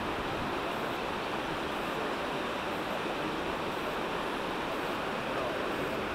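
Steady, even rushing noise with no distinct events, of the kind made by wind or rushing water in a gorge.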